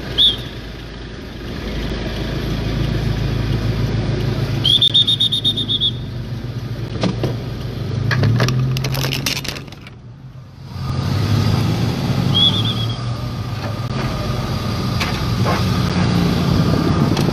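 Street traffic with vehicle engines running steadily, broken by short high whistle blasts: one near the start, a trilling blast lasting about a second about five seconds in, and another about twelve seconds in. The sound drops out briefly just after ten seconds.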